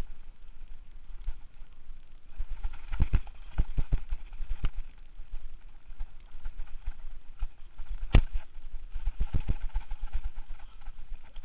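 Mountain bike clattering down a rough dirt singletrack: irregular knocks and rattles as the wheels hit bumps, over a low rumble, with the sharpest knock about eight seconds in.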